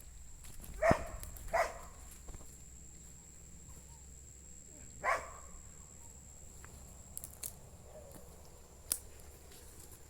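Dog barking: two short barks close together about a second in, and a third about five seconds in.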